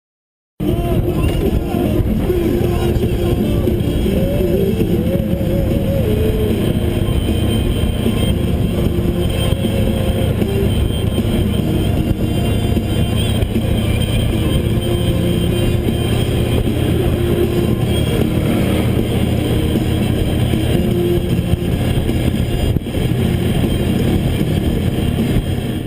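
Motorcycle engine running at steady road speed, with road and wind noise. It starts abruptly just after the beginning and cuts off near the end.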